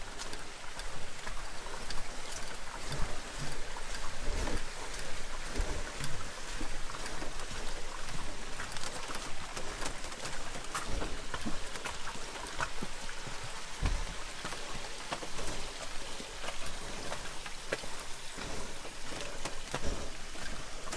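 Footsteps crunching on a rocky dirt trail with a dense crackle of small clicks and the occasional low thump of a canoe and packs being carried.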